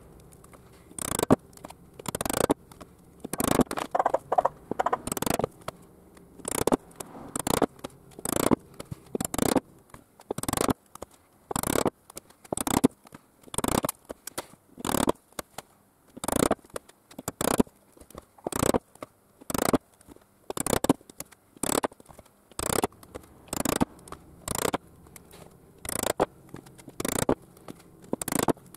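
Hammer striking a stitching chisel to punch stitching holes through sheath leather: sharp knocks about once a second, some in quick pairs.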